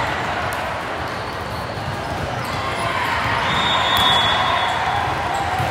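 Volleyball game noise in a gym: a steady din of voices with a few sharp knocks, and a brief high squeak about four seconds in.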